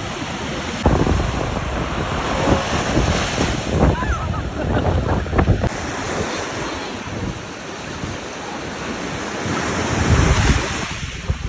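Waves from Lake Michigan washing onto the shore, with wind buffeting the microphone in gusts.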